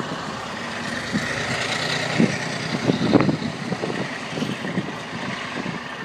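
Hymek diesel-hydraulic locomotive running steadily at the head of the train, heard from a coach window, with a couple of short knocks about two and three seconds in.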